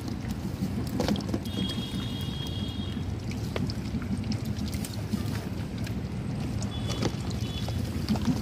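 Water sloshing and splashing with scattered small clicks over a steady low rumble like wind on the microphone. A faint high whistling tone comes in twice, near the start and again about three-quarters of the way through.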